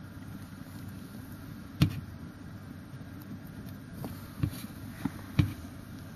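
A steady low hum with a few sharp knocks: one about two seconds in and three close together near the end.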